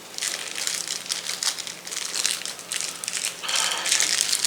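Plastic wrapper of a Hostess Twinkie crinkling as it is handled and opened, an irregular crackle that gets busier near the end.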